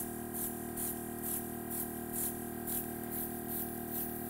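Handheld airbrush giving short hissing spurts, about two a second, as its trigger is flicked again and again. A steady low hum runs underneath.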